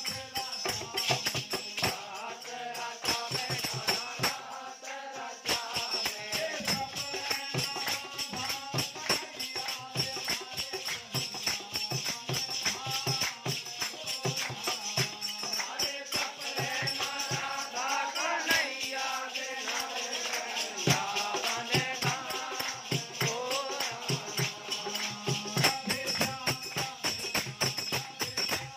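Group devotional ramdhun chanting led by a singer, accompanied by a harmonium's held reed chords, with jingling wooden kartal clappers and hand claps keeping a steady beat.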